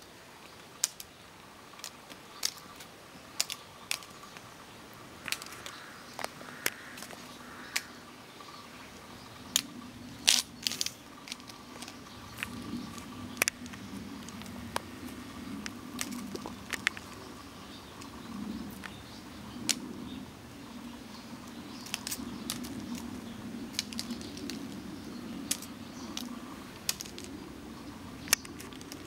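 Scattered light clicks and taps, about one every second or two with a quick cluster about ten seconds in, over a faint low rumble that grows louder from about ten seconds in.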